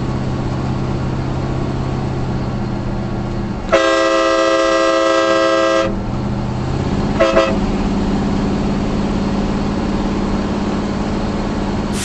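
Train horn fitted to a pickup truck blasting once for about two seconds, several notes sounding together, a few seconds in, then a short second toot; under it, the steady drone of the truck's engine and tyres heard from inside the cab.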